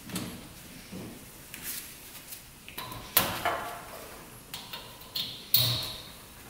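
Irregular clicks, knocks and metallic clinks of hand tools and parts being handled while the spark plugs are refitted to the two-stroke engine; the loudest knocks come about three seconds in and near the end.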